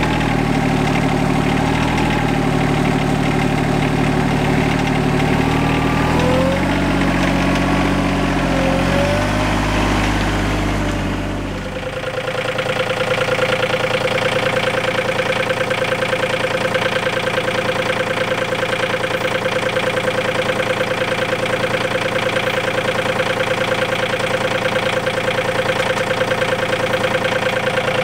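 Compact tractor's diesel engine running, its pitch shifting a couple of times in the first part. About twelve seconds in the sound changes abruptly to a steady, even idle with a higher tone.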